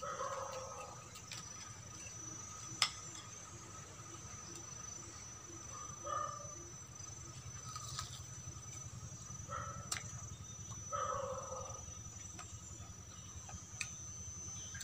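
Insects trilling steadily at a high pitch, with a few sharp clicks of a metal fork against a plate while fried chicken is eaten, the loudest about three seconds in.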